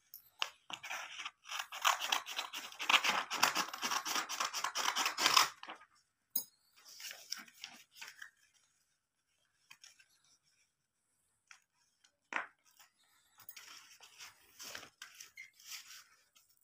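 Scissors cutting paper: a dense run of crisp snipping and paper rustle for about five seconds, then a few scattered light paper rustles and taps.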